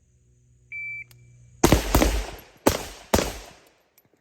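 A shot timer's single high beep, then four rifle shots from an AR-pattern rifle in 7.62x39, the first two close together and the last two a little more spaced, each ringing out briefly.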